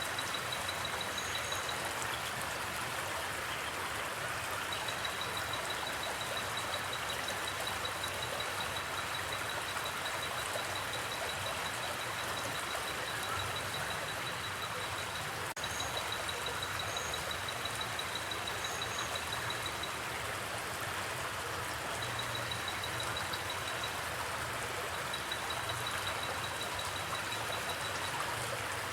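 River water flowing steadily, with a cricket chirping in a fast, even, high-pitched trill that stops and starts several times. A few short, higher chirps come through now and then.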